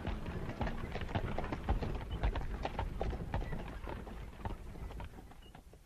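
Sound effect of horses galloping: a dense, uneven clatter of hoofbeats over a low rumble, fading away toward the end.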